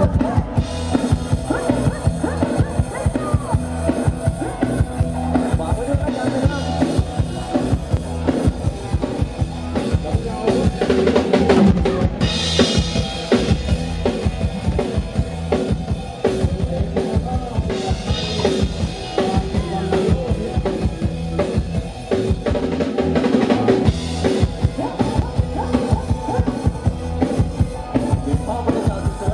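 Live band music played loud through a Thai parade sound truck's (rot hae) speaker stacks: drums with bass drum and snare keep a steady, driving beat under keyboard and electric guitars.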